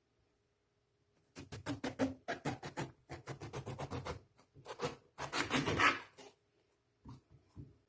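Quick scraping strokes of a kitchen utensil on a wooden board, several a second, running together into a denser stretch near the end, then a few light taps.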